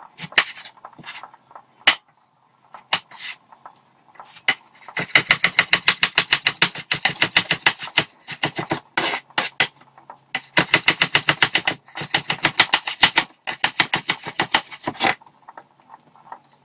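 Kitchen knife chopping a carrot on a wooden cutting board. There are a few separate cuts at first, then two runs of quick, even chopping at several strokes a second, with a short pause and scattered cuts between them.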